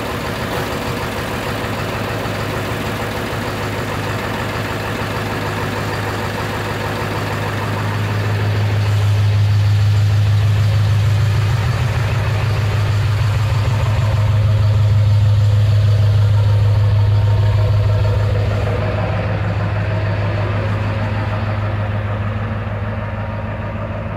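Ford 7.3 Power Stroke V8 turbo-diesel in an E350 van idling on its first start with a Holset HX50 turbocharger. It is a steady low drone that grows louder about eight seconds in and eases off again after about eighteen seconds.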